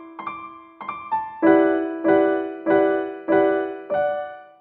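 Background music: piano playing single notes, then a chord struck five times about 0.6 s apart, the last one ringing out as the music ends.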